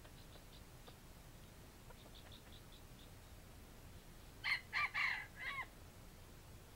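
Red junglefowl rooster giving a short, clipped crow of about four notes, about four and a half seconds in, the last note falling. A few soft clucks come before it.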